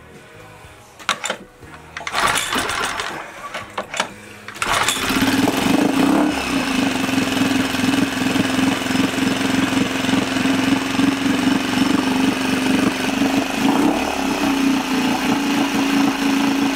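A LEHR 2.5 hp four-stroke propane outboard engine starting. After a few short rattles it catches about five seconds in and runs steadily on propane through its newly replaced fuel line.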